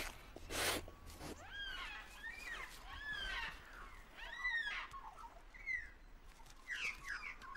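Rustling and scraping in dry straw as a Tasmanian devil forages under a floor, loudest about half a second in. After that comes a long run of short, high chirping calls, each rising and falling in pitch.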